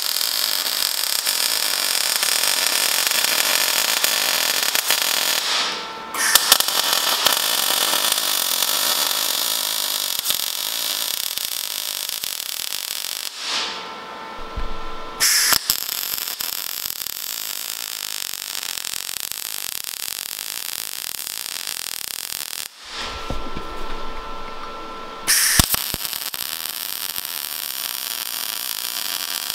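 MIG welding arc on a steel tube joint, a loud crackling hiss held in long runs as the bead is laid around the tube. It stops three times for a second or two, leaving a faint steady hum, then strikes up again.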